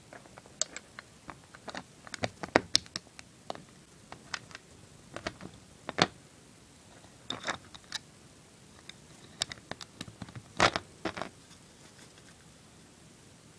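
Plastic Lego bricks clicking and tapping as a small brick build is handled over a Lego baseplate: scattered sharp clicks at irregular intervals, the loudest about two and a half, six and ten and a half seconds in.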